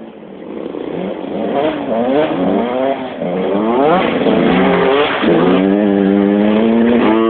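125cc two-stroke motocross bike accelerating up through the gears, its engine pitch rising in repeated sweeps and then holding high. It grows louder as it approaches and is loudest as it passes close by in the second half.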